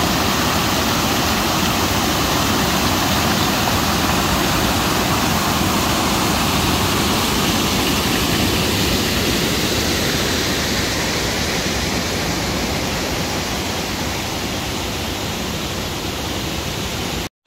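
Loud, steady rush of pond floodwater pouring out, a dense roar of water that eases slightly near the end.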